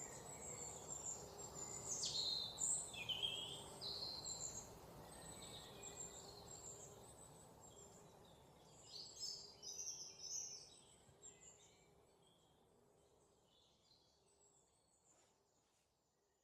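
Forest birds chirping and calling over a low, steady background hiss, with a few quick downward-sweeping calls about two seconds in and a cluster of chirps around nine to ten seconds in. The whole soundscape fades out gradually toward the end.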